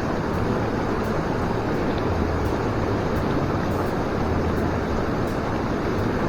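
Steady rushing of a mountain stream running high with snowmelt.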